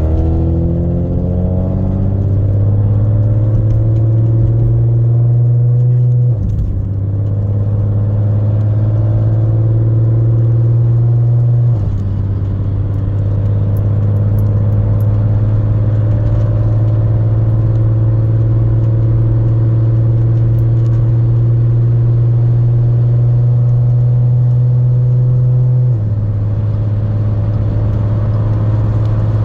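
Straight-piped Audi S4 exhaust under acceleration, running loud, its note climbing slowly in each gear and dropping with an upshift three times, about 6, 12 and 26 seconds in.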